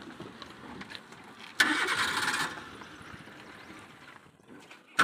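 Maruti Suzuki Eeco van crawling over rock slabs with its engine at low revs. Two harsh rasping bursts, each about a second long, come from the van: one about a second and a half in and one near the end.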